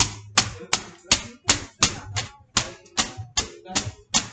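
A long cardboard tube being whacked repeatedly against a surface: sharp hits at about three a second in a steady, even rhythm.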